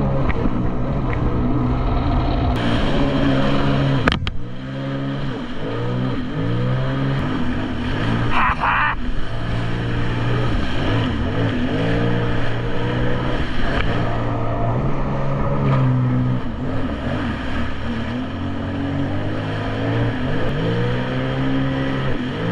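Jet ski engine running hard, its pitch rising and falling over and over as the throttle is worked, with low wind rumble on the microphone. A sharp click about four seconds in and a short hiss or splash burst about halfway through.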